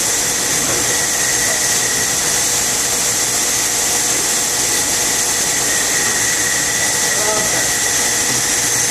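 Automatic packaging-line machinery running steadily: a constant loud hiss with a thin, steady whine through it and no distinct strokes.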